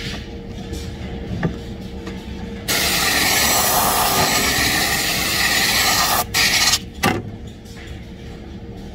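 Compressed-air blow gun blasting a steady loud hiss for about three and a half seconds, then two short blasts, over a steady machinery hum.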